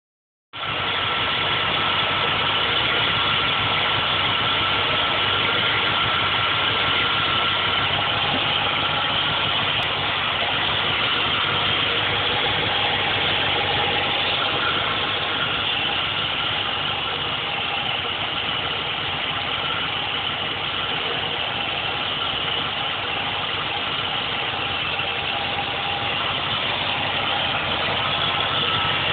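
351-cubic-inch V8 idling steadily and evenly, heard up close in the engine bay. The engine starts being heard about half a second in.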